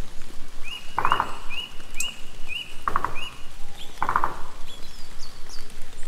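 Autumn forest ambience: a steady patter of rain, and a bird singing a string of short rising notes, about two or three a second, for the first half. Three short rattling bursts stand out, about a second in, near the middle and just past it.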